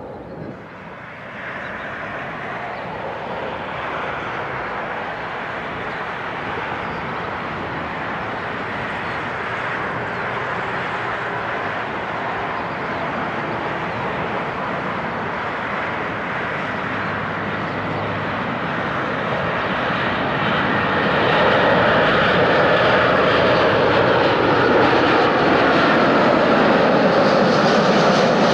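Airbus A340 on final approach, gear down, its four jet engines making a steady rumble and hiss that grows louder as the airliner comes closer, loudest over the last quarter.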